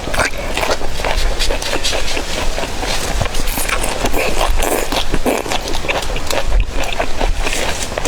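Chewing and crunching of food, a dense, unbroken run of clicks and crackles.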